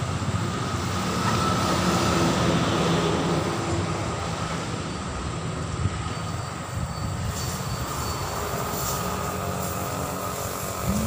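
An engine running steadily with a low drone. From about seven seconds in, a faint hiss joins it: air escaping from the truck tyre as it is let down.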